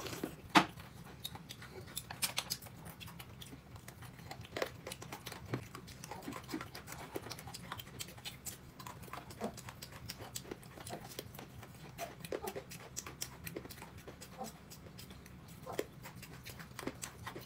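A person eating from a bowl: quiet chewing and scattered small clicks and knocks of tableware, with one sharper knock about half a second in.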